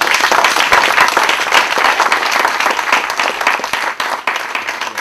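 Lecture-hall audience applauding at the end of a talk, many hands clapping; the applause thins out near the end.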